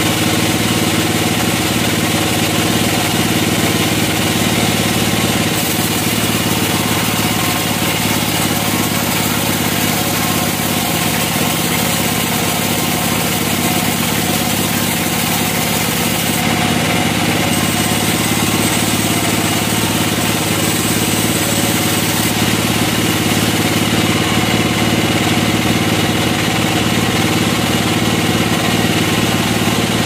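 Band sawmill running steadily, its blade cutting a long slab from a large log, with an even machine drone.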